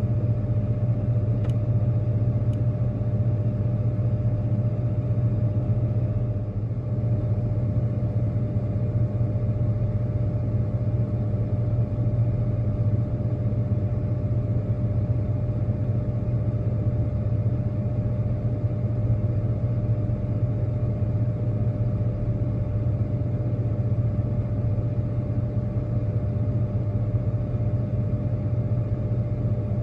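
An engine running steadily at idle: an unbroken low hum with a constant higher tone above it, hardly changing throughout.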